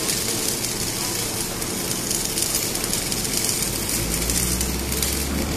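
Welding arc on a gantry beam welding machine, crackling and hissing steadily. A low hum joins about four seconds in.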